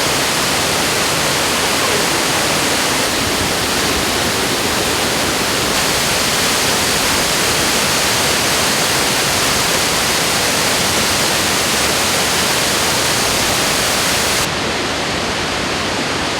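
Fukuroda Falls, a large multi-tiered waterfall, making a steady, loud rush of falling water. About two seconds before the end the sound turns a little quieter and loses its highest hiss.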